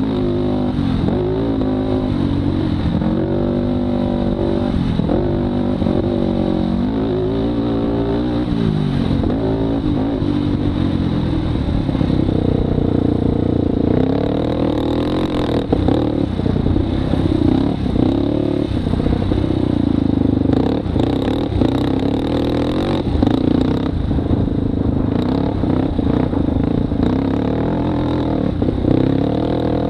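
Polaris Predator 500 sport ATV's single-cylinder four-stroke engine being ridden hard on a dirt track, its pitch rising and falling again and again with throttle and gear changes. In the second half short clattering knocks come through as the machine rides over bumps.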